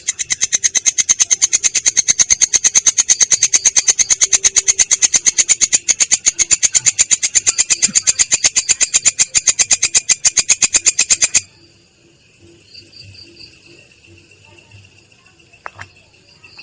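An insect stridulating in a fast, even train of dry, high pulses, about eight a second, which stops abruptly about eleven seconds in. A fainter, steady insect trill carries on underneath.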